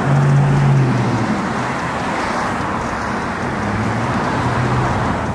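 Busy city street traffic: cars driving past with a steady rush of engine and tyre noise. A deeper engine hum is strong for about the first second and swells again near the end as vehicles go by.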